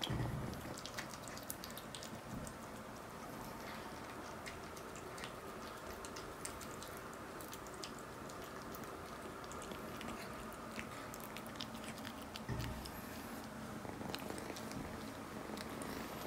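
A kitten eating wet cat food from a ceramic bowl: faint wet chewing and lapping with many small clicks. There is one soft thump about twelve seconds in.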